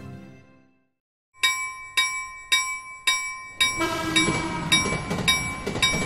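Railroad crossing warning bell ringing a steady clang about twice a second, starting about a second and a half in after music fades out. From about halfway, the rumble of a train running past joins it.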